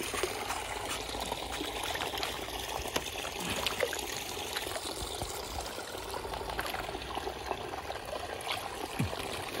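Water trickling and pouring steadily, with small splashes and clicks of water against hands and a fish being lowered into a pond.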